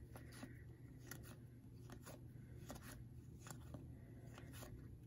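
Faint, soft scrapes of 2022 Topps baseball cards being slid one by one off a hand-held stack, a stroke every half second or so, over a low steady hum.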